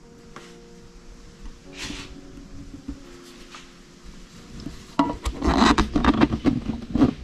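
Close handling noise: scattered rubbing and scraping, then about five seconds in a louder two-second run of rubbing with quick sharp clicks and light metallic clinks.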